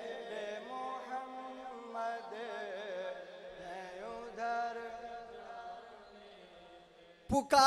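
Men's voices softly chanting a sustained, drone-like refrain, their pitch sliding over a steady lower note, fading down nearly to quiet. Just before the end a voice comes in loud and close on the microphone.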